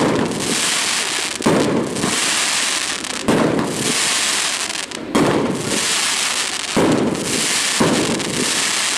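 Aerial fireworks bursting: six loud bangs one to two seconds apart, each followed by a hiss lasting a second or more.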